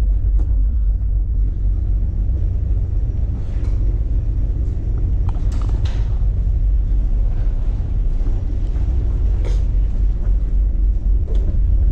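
Steady low rumble of a ferry under way, heard inside the ship, with a few faint knocks.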